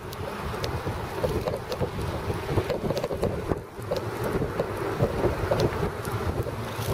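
Wind buffeting the microphone of a camera riding on a moving bicycle: a steady, uneven rumble, with scattered light clicks from the bike as it rolls along the path.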